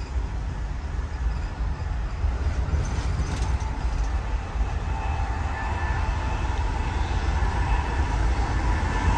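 Ride noise inside a moving Amfleet I passenger coach: a steady low rumble of wheels on rail, with a faint whine joining about halfway and the noise slowly growing louder.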